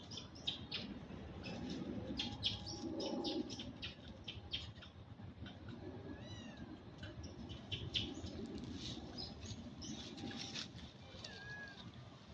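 Monkeys making many short, high-pitched squeaks and chirps, with two whining calls that rise and fall.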